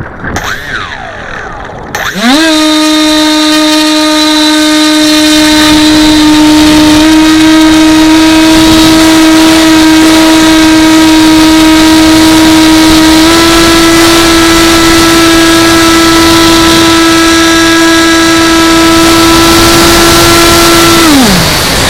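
Electric motor and propeller of an AXN Floater RC plane spinning up about two seconds in to a steady high whine, stepping up slightly in pitch twice, then spooling down near the end.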